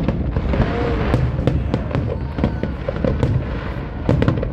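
Fireworks bursting in quick succession: a continuous low rumble of booms with many sharp cracks over it.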